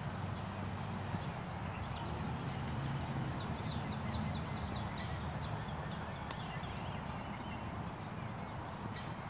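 Outdoor ambience: a steady low hum with faint high chirps and one sharp click a little after six seconds. Near the end, footsteps on grass begin as a person walks up.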